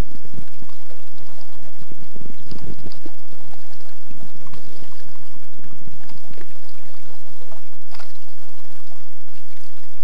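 Sit-on-top kayak being paddled: the paddle blades dipping and water splashing and trickling off them in irregular strokes.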